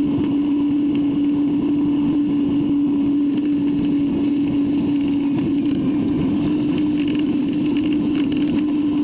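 Skid steer loader's diesel engine running steadily under throttle, a constant drone with one strong steady tone.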